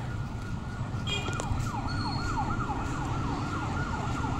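A siren sounding in quick falling sweeps, about three a second, starting about a second in, over a low steady rumble of traffic.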